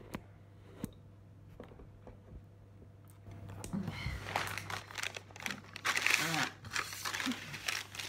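Plastic blind-bag toy packs crinkling as they are handled and shuffled, a few light taps at first, then dense crackling from about three seconds in.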